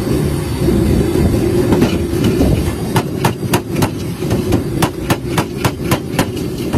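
Fries being tossed in a large metal bowl. From about three seconds in, the bowl knocks sharply on the table about three or four times a second, over a steady low rumble.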